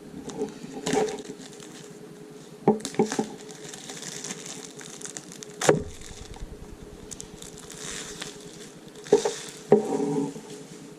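Apple Watch packaging being handled and opened: rustling with a handful of sharp knocks and taps.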